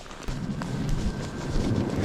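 Footsteps crunching in snow, with a low rumble of wind buffeting the microphone that comes in about a third of a second in and grows louder.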